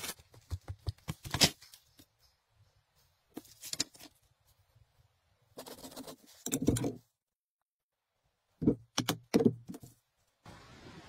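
A hand blade working a wooden stick in a few short, separate bursts of cutting and crackling, with stretches of dead silence between them.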